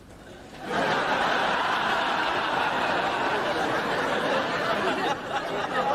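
Studio audience laughing, breaking out suddenly less than a second in and holding at full strength.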